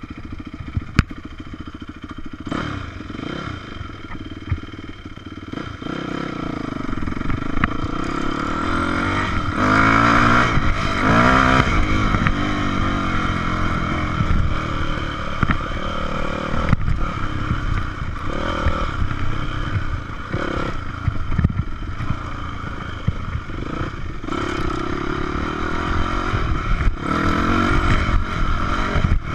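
Yamaha 426 dirt bike's four-stroke single-cylinder engine running, revving up and down again and again as the bike is ridden. It is quieter for the first few seconds and louder from about six seconds in. There is a sharp knock about a second in.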